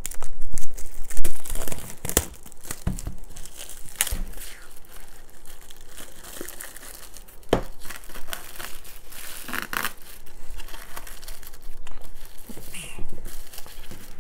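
Plastic shrink-wrap being torn open and peeled off a cardboard box set, crinkling and crackling, loudest in the first couple of seconds, with scattered sharp crackles after.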